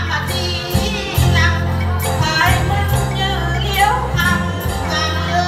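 Women singing a Vietnamese folk song to the plucked đàn tính, a long-necked gourd-bodied lute, over a steady low bass, with jingling percussion striking at intervals.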